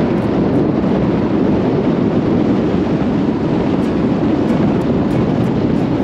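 Loud, steady rushing noise of wind buffeting the microphone from a moving car.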